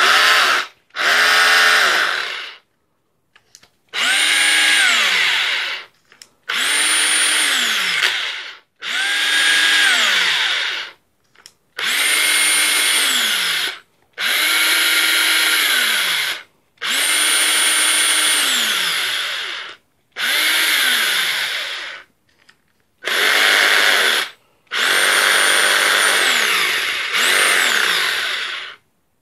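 Panasonic EY7880 28.8 V SDS cordless drill test-run in about a dozen short bursts of one to three seconds. In most bursts the motor holds a steady whine and then winds down in pitch when the trigger is let go. It runs on a newly replaced armature, after complaints that it was noisy and smelled of burning, and it sounds good.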